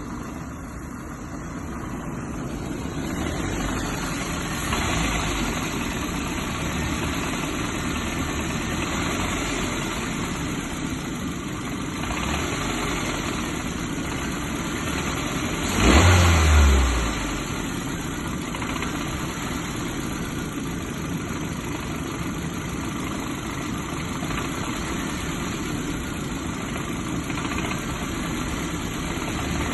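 Nissan Micra K12 engine idling, with a few light throttle blips and, just past the middle, a loud low thump lasting about a second. This is the strange knock the owner is investigating, which he thinks may be misfires.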